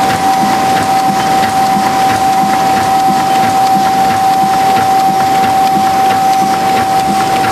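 Ustar-102 UV spot coating machine running at production speed: a steady mechanical clatter with a constant whining tone and scattered light ticks.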